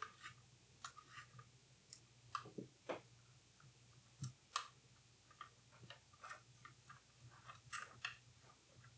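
Faint, irregular small clicks and taps of tools and metal parts being handled while the top of a Leica IIIF camera is taken apart, over a faint steady low hum.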